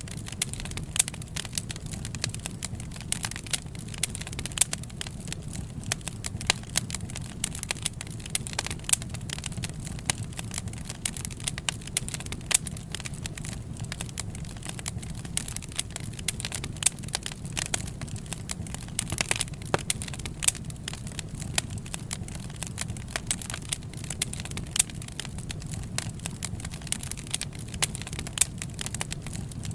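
Wood fire crackling, with frequent irregular sharp pops and snaps over a steady low rumble of burning.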